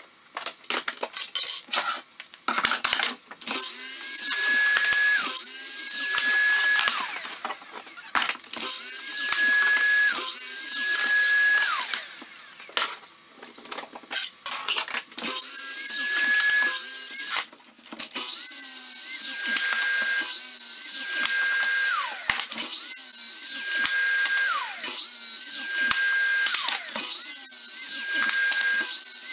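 A Festool sliding compound miter saw crosscutting wood into short blocks, about ten times over. Each time the motor spins up to a steady whine for a second or two, then the blade winds down as the trigger is let go. There are knocks of the wood being handled at the start.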